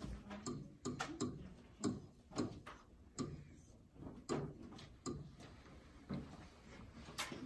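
Quiet classroom with irregular light taps and clicks, about one or two a second, some with a dull knock: a pen tapping on the interactive whiteboard's screen as a division problem is written, amid small desk noises.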